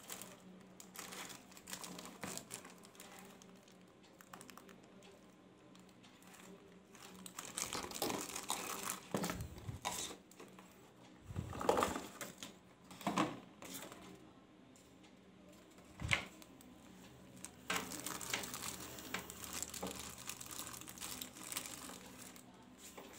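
Clear plastic wrapping crinkling and the cardboard box rustling as a boxed gaming mouse is handled and unwrapped, in irregular bursts with a short sharp knock past the middle.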